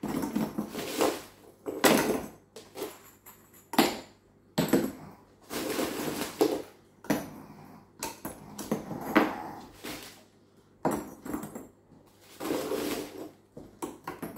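Pieces of ceramic filter media clinking and clattering against each other and the tray as they are put by hand into a Bakki shower tray, in irregular clusters of knocks.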